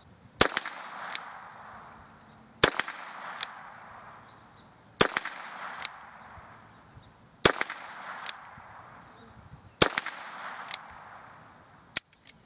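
Ruger Wrangler .22 LR single-action revolver fired five times, slow and evenly spaced, about one shot every two and a half seconds. Each crack rings out and fades, with a smaller sharp click under a second after it. A few quick small clicks come near the end.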